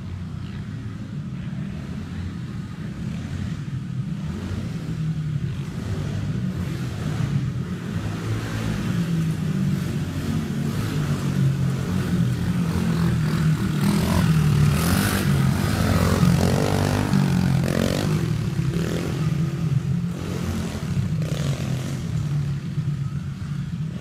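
Baja Dirt Runner 70cc four-stroke dirt bike engine running and revving as the bike laps a dirt track, growing louder as it comes nearer about halfway through, then easing off.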